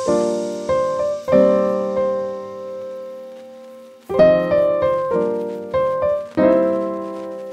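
Background music of slow piano chords, each struck and left to fade, with one long chord dying away from about one to four seconds in before the playing picks up again.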